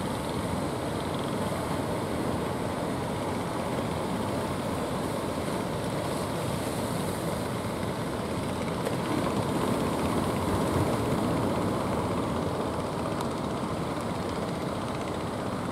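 Steady rumble of rough sea surf breaking along the shore, swelling a little about ten seconds in.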